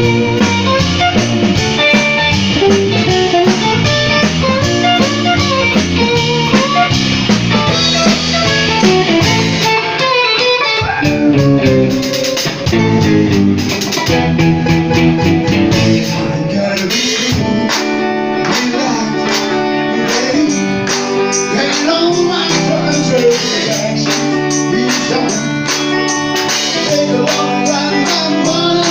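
Live band music: an electric guitar playing over a steady beat.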